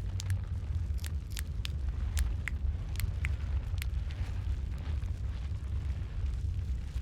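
Wood fire in a fireplace crackling, with sharp pops that come thick in the first few seconds and thin out later, over a steady low rumble of the flames.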